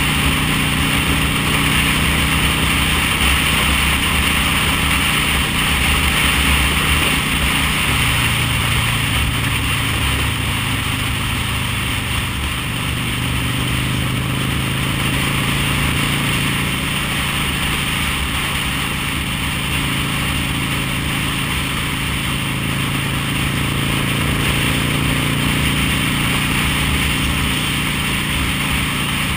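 V-twin cruiser motorcycle engine running at a steady cruising speed, heard under heavy wind rush. The engine note drops in pitch about eight seconds in.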